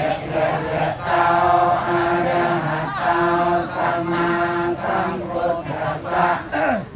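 Congregation chanting Pali together in unison while taking the Buddhist precepts: many voices held on one steady reciting pitch in short phrases, each ending with a brief breath pause.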